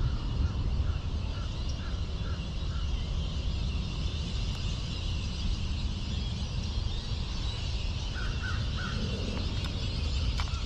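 Outdoor park ambience with a steady low rumble and a steady high hiss, over which a bird gives short, quickly repeated call notes: a run of them at the start and three more about eight seconds in.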